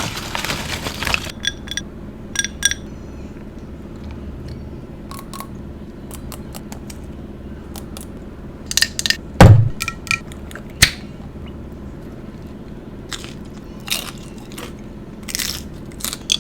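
Close-miked eating of fish tacos: scattered bites, crunches and wet mouth clicks while chewing, with a loud low thump about halfway through.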